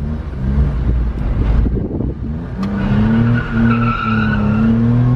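A 1992 Suzuki Carry's small carbureted three-cylinder engine heard from inside the cab, pulling the truck through a turn. The engine note firms up and climbs slightly about two and a half seconds in as it accelerates, with a thin high squeal near the middle.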